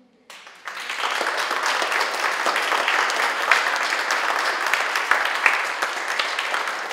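An audience applauding, the clapping starting within the first second and quickly building to a steady level.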